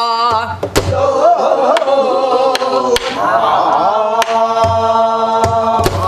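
A woman sings gueum, the wordless Korean vocal singing on syllables such as 'na' and 'neo', in long held, wavering tones. She accompanies herself on a sori-buk barrel drum, striking it with a stick several times at an uneven pace, some strokes sharp clicks and some deeper thuds.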